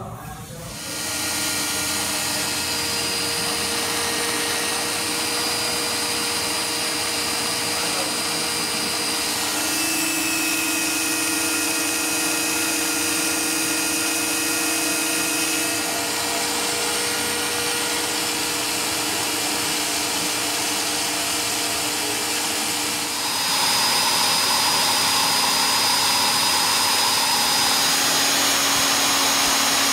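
Electric drills spinning the pinion shafts of a small bevel-gear differential gearbox: a steady motor whine starting about a second in, with its tones shifting a couple of times and a step up in loudness about 23 seconds in as the speed is raised.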